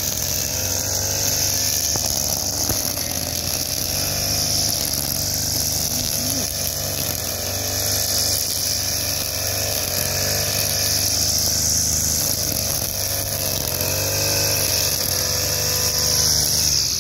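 Backpack petrol brush cutter engine running at high speed while the worker cuts grass and weeds. Its pitch wavers up and down as the cutting head meets the growth.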